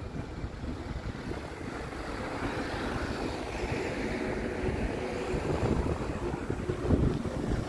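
An engine-like rumble with a faint steady hum, growing gradually louder as it approaches and loudest near the end.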